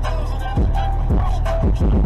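Background music with heavy bass, a beat of kicks that drop in pitch, and a short repeating synth melody.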